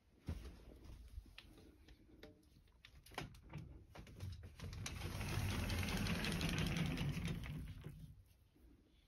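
A few handling clicks and knocks, then a sliding closet door running open along its track for about three seconds.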